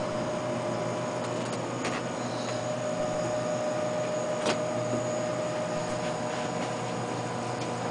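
Steady mechanical hum with a low hiss under it, and a couple of faint clicks about two and four and a half seconds in.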